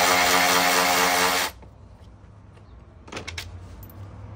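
Cordless ratchet running steadily with a whine, spinning out a 10 mm bolt on the grille assembly; it stops abruptly about a second and a half in. A few faint clicks follow near the end.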